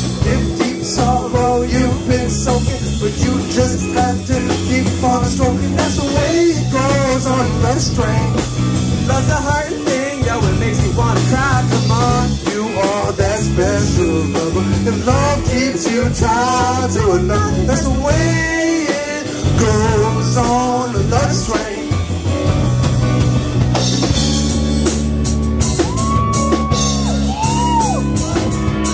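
Amplified live band playing a pop-rock cover: drum kit, bass, electric guitars and keyboard, with a lead singer's vocal runs over the top. About 24 seconds in the singing drops out and the band plays on with the drums more to the fore.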